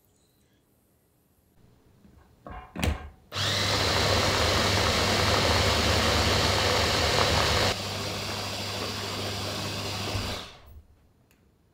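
A small electric food chopper pureeing cooked mung beans: a couple of knocks, then the motor runs steadily and loudly for about seven seconds. It gets quieter about two-thirds of the way through, then winds down.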